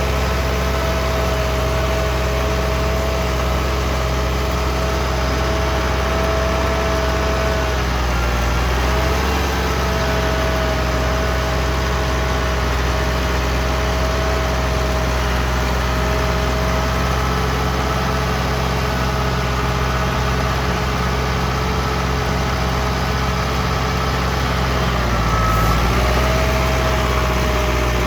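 Ford 6610 tractor's diesel engine running steadily at close range, with a steady whine over it that dips briefly twice.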